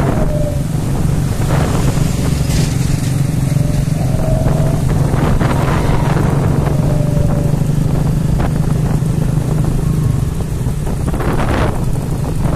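Old Honda underbone motorcycles' small single-cylinder four-stroke engines running steadily at cruising speed, with wind buffeting the microphone in gusts.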